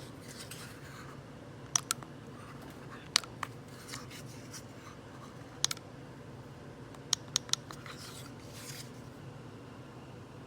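Several short, sharp clicks, some in quick pairs and a run of three, over a steady low hum.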